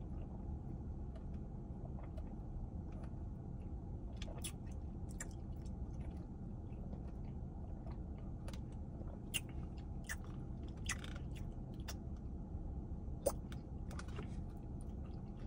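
A person chewing and biting into buffalo chicken mac fries, with scattered soft crunches and mouth clicks at irregular intervals over a steady low hum.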